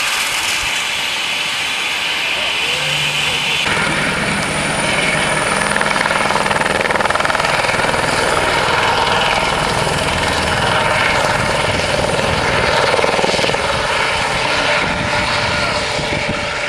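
Small turbine helicopter with a fenestron (shrouded) tail rotor, lifting off from the grass and flying away low. Its rotor noise runs with a steady high whine and grows fuller and louder about four seconds in.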